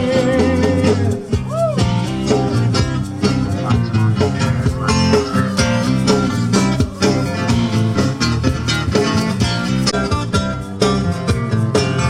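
Music with guitar and a steady beat: an instrumental passage between the sung lines of a pop-country song.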